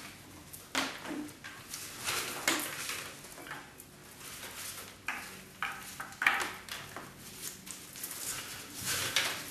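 Fiber rush (twisted paper cord) rustling and swishing in irregular strokes as a coil of it is passed around the wooden chair rails and the strand pulled through, with a few light knocks, the loudest about six seconds in.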